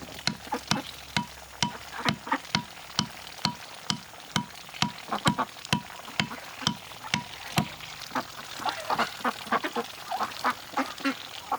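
Ducks quacking, busiest in the last few seconds, over a steady series of sharp knocks about twice a second.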